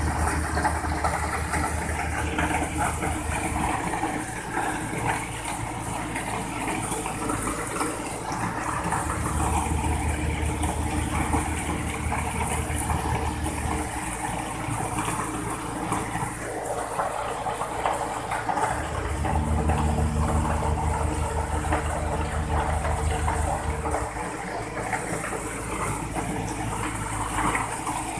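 Ready-mix concrete truck running during discharge: the diesel engine and turning drum hum steadily while wet concrete slides and splashes down the discharge chute. The low engine hum gets stronger three times, for about four to five seconds each, as the engine is revved.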